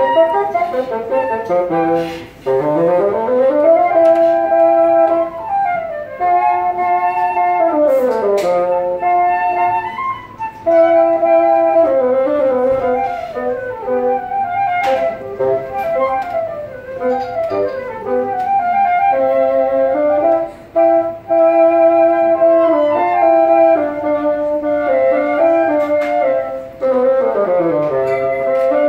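Flute and bassoon playing a duet: the flute carries the melody above while the bassoon plays a lower line, with quick scale runs sweeping down into its low register and back up several times.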